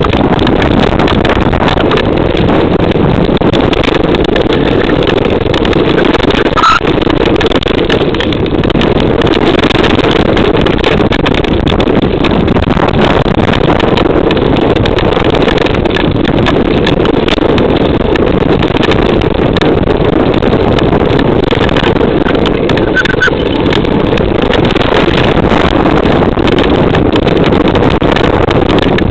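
Steady rush of wind buffeting the microphone as a mountain bike rides fast down a rough dirt trail, with the bike rattling and ticking over stones throughout.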